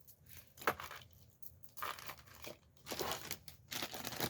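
Small plastic bag crinkling in short rustles as jewelry is handled, with one sharp click about two-thirds of a second in.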